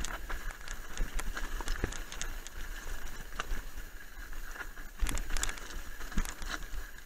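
Mountain bike rattling over loose scree: tyres crunching on stones and the bike clattering with many sharp knocks, busiest about five seconds in, over a steady low rumble of wind on the microphone.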